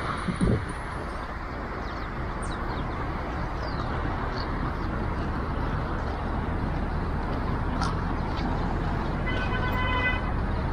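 Steady outdoor rumble and hiss, like a vehicle or traffic, with a few faint short high chirps. A brief pitched tone sounds near the end.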